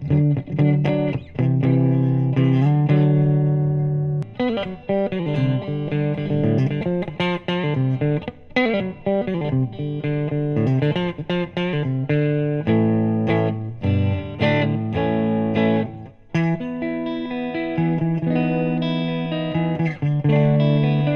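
Electric guitar, an Oscar Schmidt OE20 Les Paul copy with humbucking pickups, played clean through a VOX VT40X modelling amp on a Fender-type setting. It plays a mix of ringing chords and single-note blues licks with string bends, on old original strings that are a little dead.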